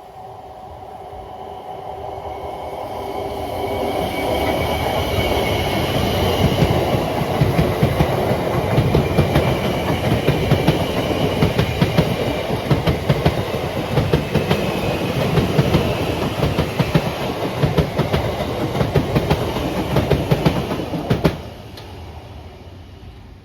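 Electric passenger train passing at speed: a rumble that builds over the first few seconds, then a steady run with the rhythmic clickety-clack of wheels over rail joints and a faint whine above it. The sound drops away suddenly near the end.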